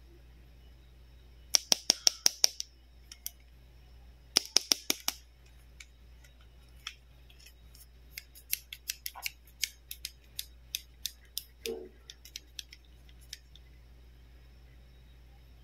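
Plastic toy scissors clacking open and shut. There are two quick runs of sharp clicks in the first five seconds, then slower, spaced single clicks for about five seconds.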